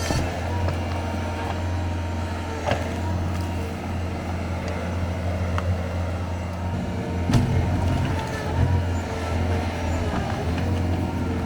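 Bobcat tracked skid steer's diesel engine running steadily under work, with a couple of sharp knocks about three and seven seconds in.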